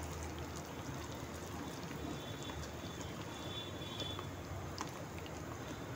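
A hand beating thick, coarse-ground moong dal batter in a metal bowl: faint, wet squelching.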